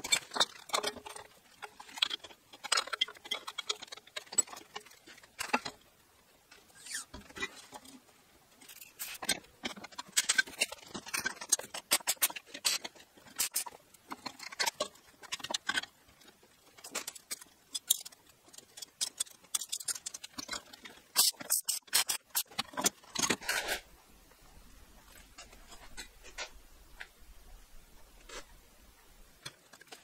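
Workshop handling sounds: irregular light clicks, taps and knocks of tools and parts being picked up and set down, with no machine running.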